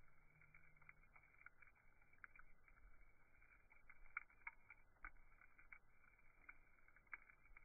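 Faint, irregular crackling of a wood fire burning in a homemade ammo-box stove, small pops scattered among a soft hiss.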